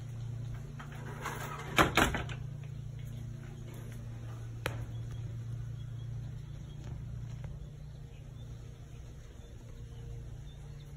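Screen door clattering: a quick cluster of sharp knocks about two seconds in, then a single click a little before five seconds, over a steady low hum.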